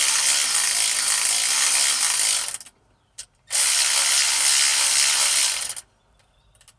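Ratchet with a 13 mm socket clicking rapidly in two runs, with a short pause between them, as it tightens nuts on threaded rods that draw diesel injectors down past their O-rings into the cylinder head.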